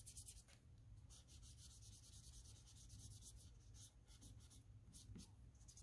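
Faint, quick scratching strokes of a felt-tip marker colouring in on paper, its flat side laid to the page to fill the area.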